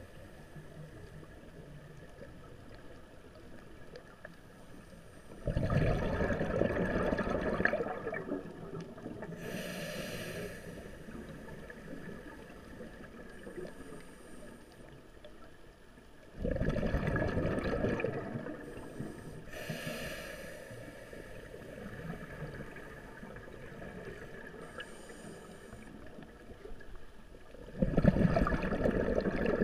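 Scuba diver breathing through a regulator underwater. There are three long bursts of exhaled bubbles about eleven seconds apart, and the first two are each followed a couple of seconds later by a short hiss of inhalation.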